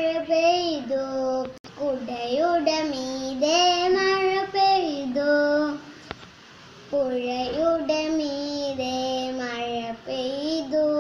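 A young girl singing a melody in long held notes that slide from one pitch to the next, pausing briefly about six seconds in before carrying on.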